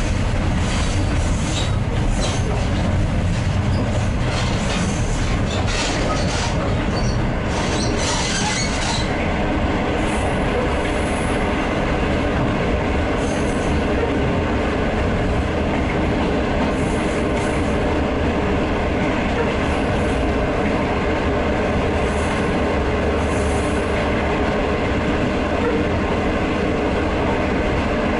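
Diesel-hauled passenger train running along the line: a steady low rumble of the coaches' wheels on the rails. For the first nine seconds or so there is also sharper, brighter rail noise in short bursts, after which it settles into the even rumble.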